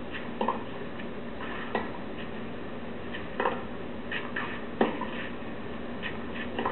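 Tennis ball struck back and forth in a baseline rally on a clay court: sharp pops of the racket strikes roughly every second and a half, with fainter taps between them, over the steady hiss of an old television broadcast.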